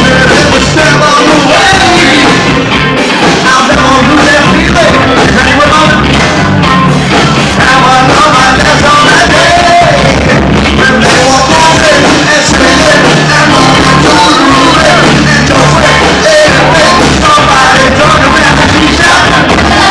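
Live rock band playing loudly and continuously, with a steady low end under a wavering lead line.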